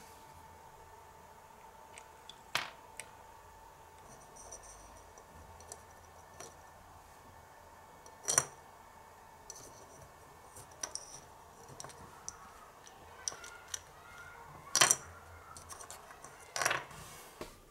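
Scattered small clicks and taps from tiny plastic toy kitchen pieces being handled: the toy microwave's door, then a little metal spatula scraping and tapping in a plastic griddle pan. The sharpest taps come about 8 and 15 seconds in, and a faint steady hum runs under the first half.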